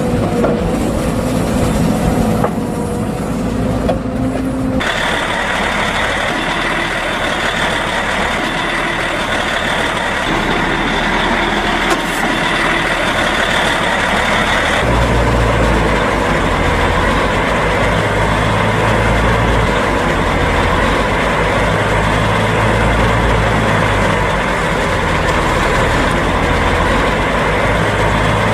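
Heavy diesel machinery running: a Liebherr 538 wheel loader's engine for the first few seconds, then a Ginaf agrotruck's engine. The sound changes abruptly about five seconds in and again about fifteen seconds in, when it becomes a deeper, steadier engine sound.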